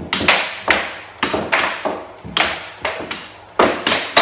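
Air hockey puck being struck back and forth with mallets in a fast rally: a run of sharp, irregular clacks, several a second.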